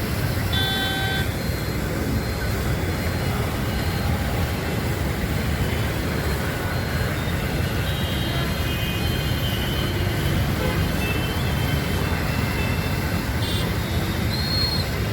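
Steady road traffic noise, with vehicle engines running. Short horn toots sound about a second in and several more times in the second half.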